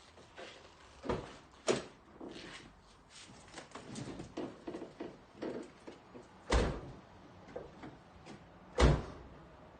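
Scattered knocks and clunks, with two heavier thumps about six and a half and nine seconds in, the second the loudest.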